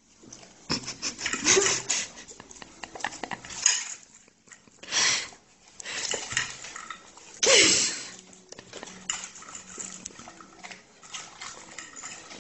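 A fork clinking and scraping on a china plate, mixed with a dog's eating and mouth noises. Several louder noisy bursts come through, the loudest about seven and a half seconds in.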